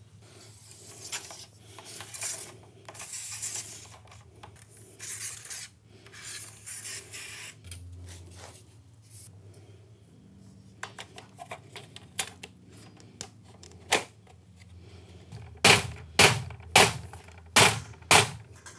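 Aluminium track insert being slid and pressed into a vinyl sliding-door sill track, with scraping and light metallic rattling. In the last few seconds a mallet taps along the track to seat the insert, a run of sharp knocks about two a second.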